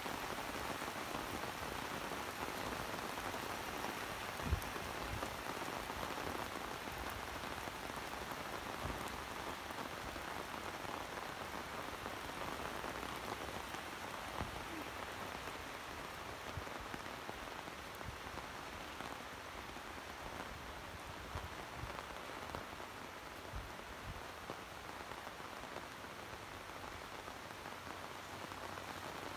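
Heavy tropical rain falling steadily, a dense hiss of drops on the ground and corrugated metal roofs, easing slightly toward the end. A single sharp thump about four seconds in, and a few fainter low thumps later.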